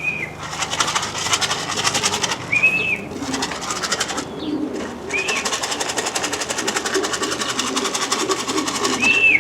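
Racing pigeons cooing at the loft, with a rapid high rattling buzz that cuts in and out several times and four short chirps.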